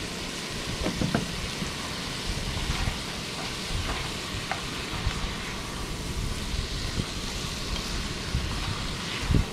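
Onion, capsicum, garlic and ginger sizzling steadily in curry paste in a steel pot on a portable camp stove, stirred with a metal spoon that clinks against the pot a few times.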